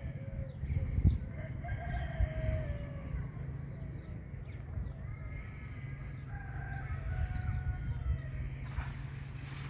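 Chickens calling: two drawn-out, gliding calls, the first about a second in and the second from about the middle, over a steady low rumble with a couple of soft knocks.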